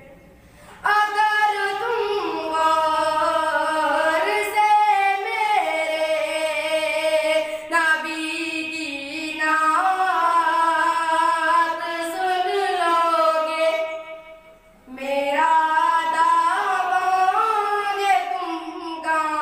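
A boy singing an Urdu nazm solo into a microphone with no instruments, in a high voice with long, wavering held notes. He pauses for breath near the start and again about fourteen seconds in.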